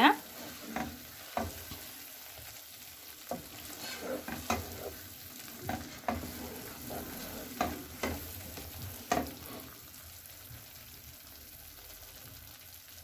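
Wooden spoon stirring thick watermelon halwa in a nonstick pan on the heat: scattered soft knocks and scrapes of the spoon against the pan over a low sizzle. The halwa is at its finished stage, rolling around with the spoon without sticking to the pan. The spoon sounds stop about three quarters of the way through while the sizzle goes on.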